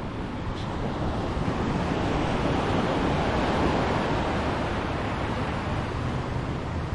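Caribbean sea surf washing on a beach, with wind on the microphone; the wash swells a little about halfway through.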